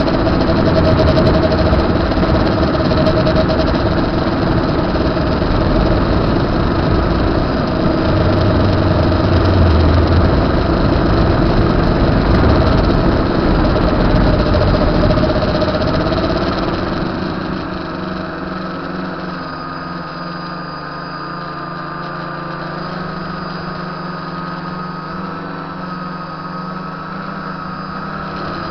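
Tricopter's electric motors and propellers whirring, with a wavering pitch. About two-thirds of the way through the sound drops to a quieter, steadier hum.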